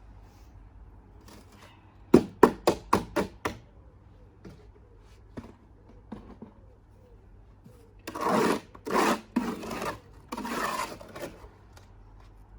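A quick run of about six knocks, then three rough scrapes, as cement is tapped and scraped into place with a tool.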